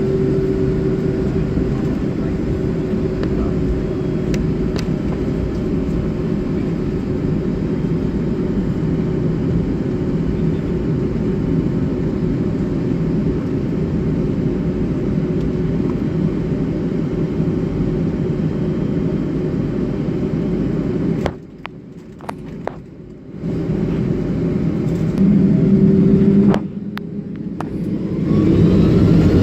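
Jet airliner cabin noise from a Boeing 757-300 taxiing, a steady rumble with a low engine hum. The sound dips sharply for a moment twice, and near the end it grows louder with a rising whine as the engines spool up for the takeoff roll.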